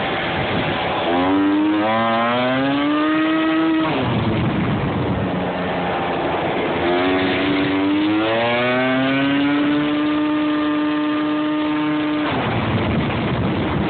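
Small scooter engine pulling away twice: its pitch climbs steadily, then drops off as the throttle eases about four seconds in. It climbs again and holds steady at speed before easing off near the end, over a constant rushing noise.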